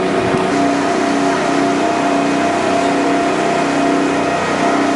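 A small passenger boat's engine running steadily at sea: a constant drone with a few steady hum tones over a steady rushing noise.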